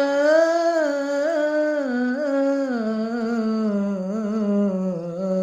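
Solo male voice chanting an Islamic ibtihal, holding one long melismatic note with small trills that steps slowly down in pitch.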